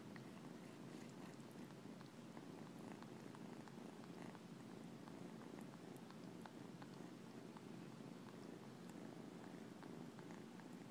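Kitten purring faintly and steadily while it sucks on a person's finger for comfort.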